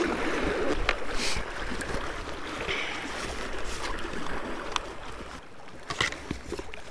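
Water lapping and splashing against a kayak's hull with some wind, and a few short sharp clicks of gear being handled.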